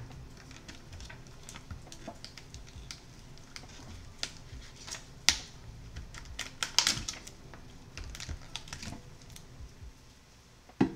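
A salmon package being cut open and handled: irregular clicks and crinkles, loudest about five and seven seconds in.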